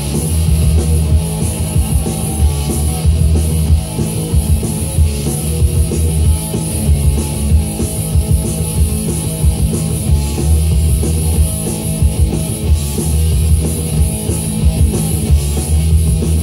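Loud recorded rock music with drums, a steady beat and heavy bass, played by a DJ through a sound system.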